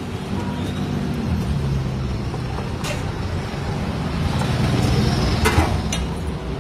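Steady low rumble of street traffic and engines, with a few sharp metal clinks of cooking utensils against a large steel tawa, one about three seconds in and two more near the end.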